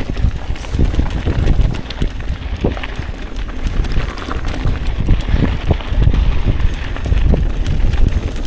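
Mountain bike ridden over a rocky trail, with a steady run of irregular rattles and knocks from the bike and tyres, over wind rumbling on the microphone.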